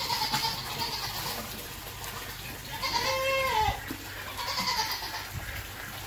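Goat bleating several times, the loudest a drawn-out bleat about three seconds in that rises and falls in pitch.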